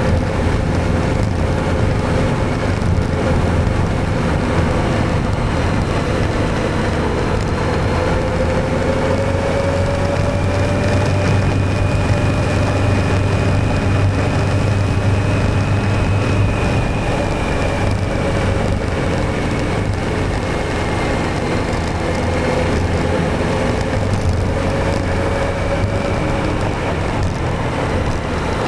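Motorcycle engine running while riding, its pitch rising and falling gently with speed, over a steady rush of road and wind noise.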